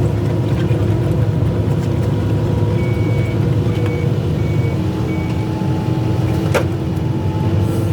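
Excavator's diesel engine running steadily, with four short high-pitched alarm beeps about halfway through and a single sharp knock near the end.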